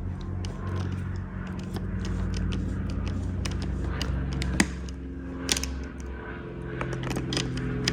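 10 mm socket ratchet tightening small nuts on studs: scattered light clicks and metal clinks, with a couple of sharper knocks in the middle, over a steady low hum.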